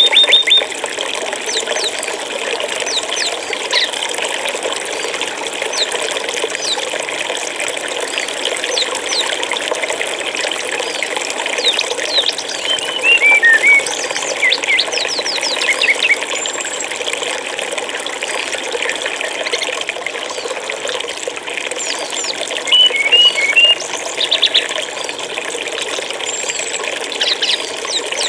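Flowing stream water running steadily, with small birds chirping over it in short high notes, in bursts a little under halfway through and again about three-quarters of the way in.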